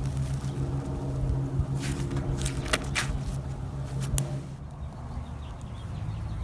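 Floam slime, with its foam beads, being squeezed and pressed by hand, giving scattered sharp crackles and pops over a steady low hum.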